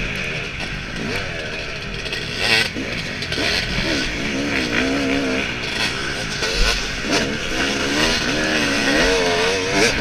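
Yamaha dirt bike engine revving hard and dropping back again and again as the rider works the throttle through the turns, heard close up from the bike itself over a steady rushing noise.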